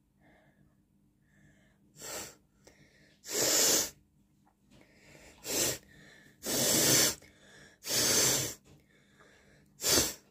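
A person forcing air out hard through the nose in six noisy bursts over about eight seconds, some short and some lasting about half a second.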